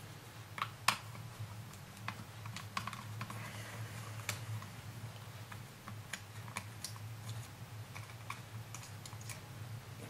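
Faint, irregular small clicks and taps of a screwdriver working screws out of a Bose SoundDock Portable's plastic housing, over a low steady hum.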